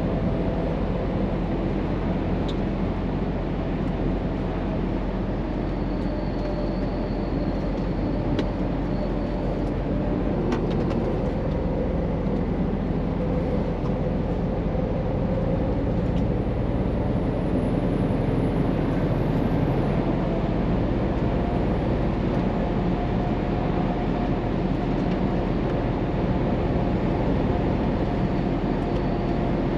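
Scania truck's diesel engine running steadily on the move, with tyre and road noise, heard inside the cab.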